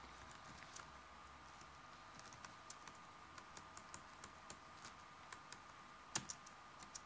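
Faint, irregular typing on a computer keyboard, with a few louder keystrokes about six seconds in.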